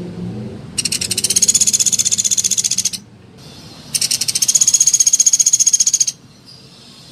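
Pelatuk beras woodpecker calling: two rapid, high-pitched trills of about two seconds each, a second apart.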